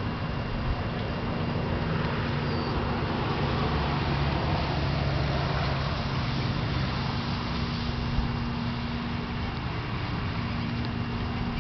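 Steady background traffic noise: a continuous rumble with a low, even hum.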